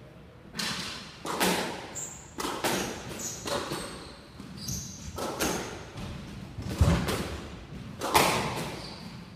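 Squash rally: a quick run of sharp hits as the ball cracks off rackets and smacks the walls and floor, about one every half-second to second, the loudest a deep thump about seven seconds in. Short high squeaks of court shoes on the wooden floor come between hits.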